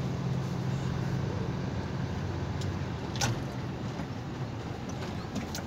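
Truck engine running in a steady low drone while the truck rolls slowly, heard from inside the cab. The drone eases off after the first couple of seconds, and there is one sharp click a little past halfway.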